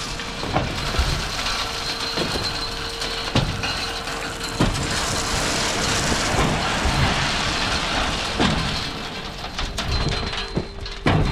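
A dump trailer's hydraulic pump whines at one steady pitch over a running truck while the bed is raised to tailgate rock out onto a driveway, with a steady hiss of rock sliding out. The whine dips slightly in pitch late on and stops shortly before the end.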